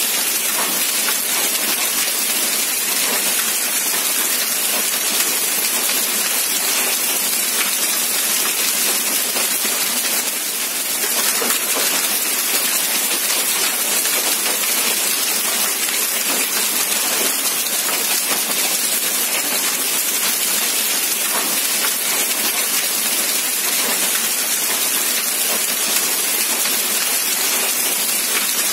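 Heavy rain falling steadily, a constant hiss, with runoff streaming off the edge of a corrugated roof.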